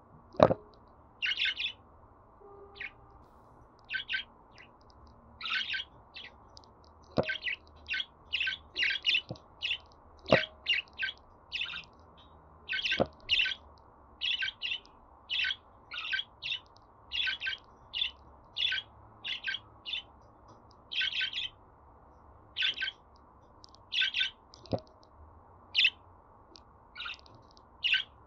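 Budgerigars chirping and warbling in quick short bursts of high chirps, with about five sharp clicks or taps among them.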